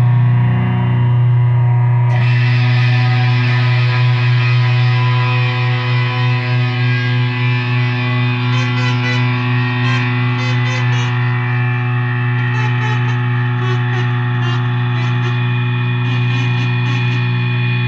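A sustained, heavily distorted drone held on one low note with a dense stack of overtones; about two seconds in it suddenly turns brighter and harsher, and a few seconds later it wavers quickly in volume for a while.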